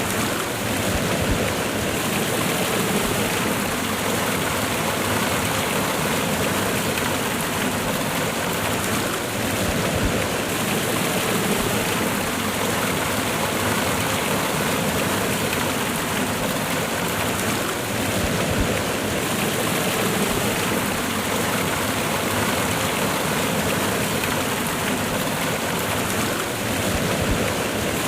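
Cascading waterfall: water falling and rushing in a steady, even roar.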